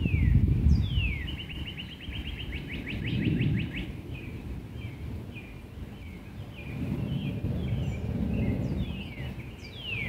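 A songbird sings: two quick downward-slurred whistles, then a fast trill of about two and a half seconds, a few short scattered notes, and two more downslurs near the end. Underneath, and louder, a low rushing rumble swells and fades.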